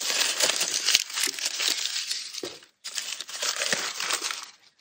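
Crumpled newspaper packing rustling and crinkling as it is pulled out of a clear plastic tub, in two long stretches with a brief pause in the middle.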